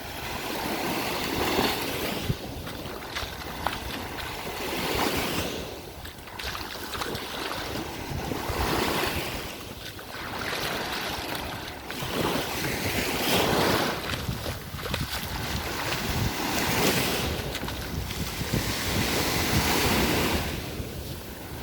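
Sea waves washing onto a beach, the surf swelling and falling back every few seconds, with wind buffeting the microphone.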